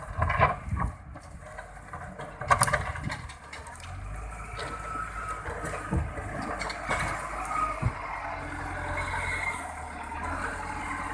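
A motor engine running steadily, with a few sharp knocks in the first three seconds.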